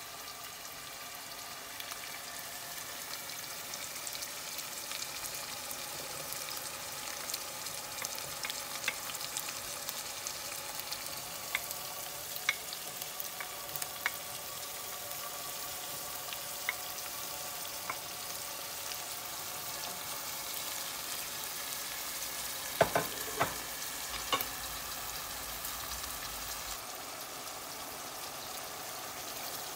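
Chopped onions and vegetables sizzling steadily in hot oil in a pan, with scattered sharp pops and clicks. A short run of louder knocks comes about three quarters of the way through.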